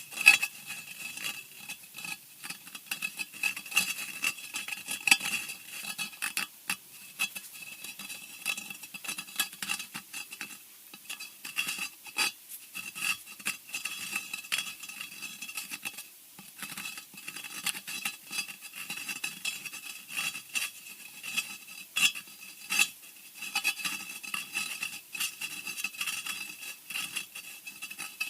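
Horror scratching sound effect: dense, uneven scratching and scraping strokes with a shrill edge, going on throughout in clusters of quick strokes.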